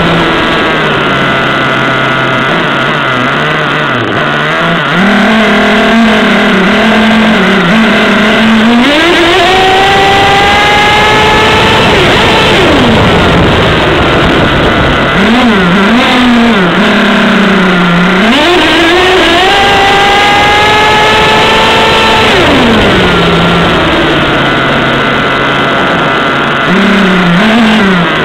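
Nitro engine of an RC monster truck (Kyosho Mad Force Kruiser) revving hard. Its pitch climbs steadily through two long full-throttle runs, about nine and nineteen seconds in, and drops back to an uneven idle between them, with a few short throttle blips. The engine is tuned rich, running at about 120 °C.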